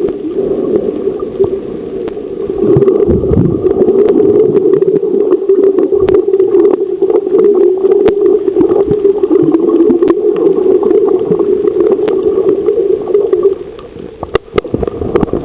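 Underwater sound off a coral reef: a steady muffled drone with scattered clicks and crackles, dropping away near the end before a few sharp clicks.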